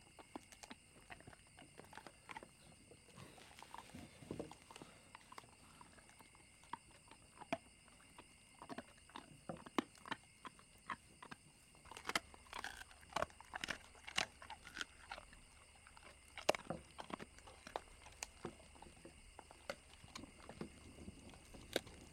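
Dog gnawing and chewing a bone: faint, irregular crunching and snapping clicks that grow denser and louder about halfway through, over faint steady high-pitched tones.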